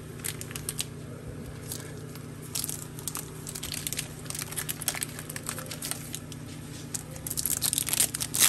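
Foil trading-card pack wrapper crinkling and tearing, with cards handled, in scattered short crackles that come thickest near the end. A steady low hum runs underneath.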